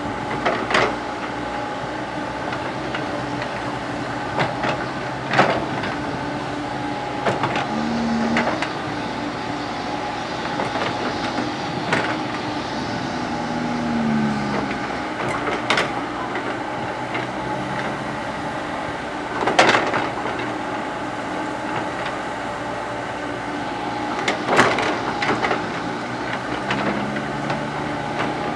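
Komatsu PC70 hydraulic excavator's diesel engine running steadily while it digs, with repeated sharp clanks and knocks from the bucket and boom and a few brief rising and falling whines as the hydraulics take load.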